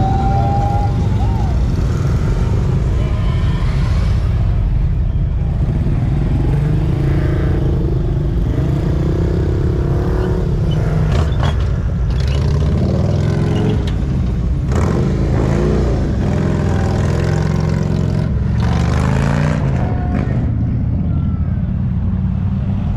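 Several motorcycles pulling out and riding off. Their engines rumble steadily and rev, the pitch rising and falling several times.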